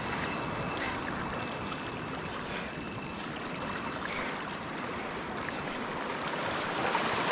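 Steady wash of water and wind, with the light ticking of a Daiwa Luvias 2500 spinning reel being wound in.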